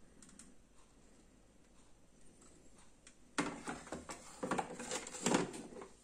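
Clear plastic water tank of a Jura Impressa A5 coffee machine being handled. Faint clicks at first, then a couple of seconds of irregular plastic knocking and rattling starting about halfway through.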